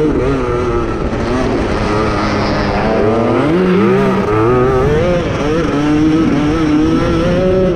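Grass kart engine heard onboard at racing speed, its pitch wavering up and down with the throttle. It drops about three seconds in as the kart slows to around 20 mph, then climbs again as the kart accelerates back past 30 mph.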